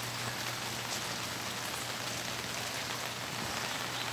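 Steady rain falling: an even hiss with no breaks.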